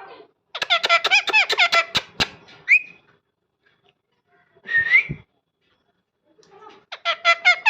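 Parrot whistling and chattering: a quick warbling run of pitched calls, two short rising whistles, then another warbling run near the end.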